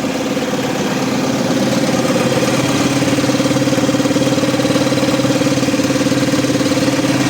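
Renault Midlum DXi5 5-litre four-cylinder turbo-diesel truck engine running steadily at idle, having just caught after a hard start, a hard start traced to a leaking fuel filter.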